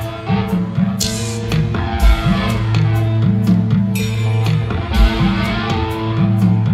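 Rock band playing live through a big outdoor PA: electric guitar, bass and drums, with cymbal strikes and a heavy low drum hit about every three seconds over a held low note.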